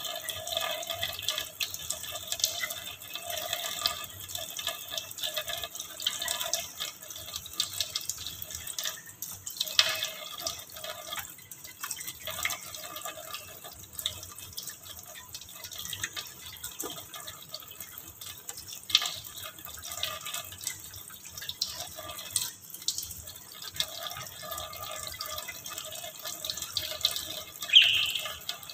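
Thin stream of tap water running onto a wire birdcage and splashing and dripping into a stainless steel sink. A brief sharper sound stands out near the end.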